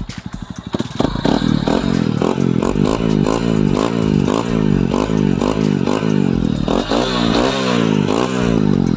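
Honda CRF150's single-cylinder four-stroke engine running through a homemade kalkal exhaust pipe, first idling with an even thump. From about a second in it is revved in quick repeated throttle blips, the pitch rising and falling two or three times a second.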